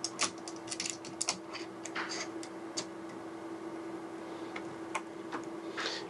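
Hand screwdriver turning a small mounting screw in a metal camera-head mount, giving irregular light clicks and ticks, thickest in the first few seconds, over a faint steady hum.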